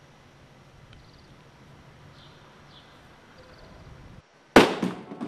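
Faint outdoor background with a few faint high bird-like chirps. About four and a half seconds in, a sudden loud bang, followed by a couple of quieter knocks.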